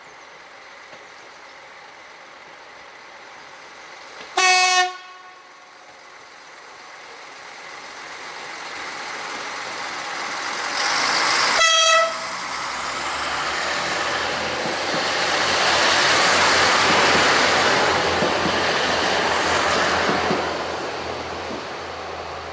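SNCF X 73500 diesel railcar giving two short horn blasts, about four seconds in and again some seven seconds later, then running past close by with its diesel engine and rolling noise, loudest a few seconds after the second blast and easing off near the end.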